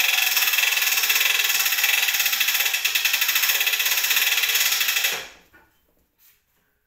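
Plasterboard lift's winch cranked to raise a sheet of plasterboard to the ceiling: a loud, fast, continuous ratchet clatter that stops suddenly about five seconds in, followed by a few faint knocks.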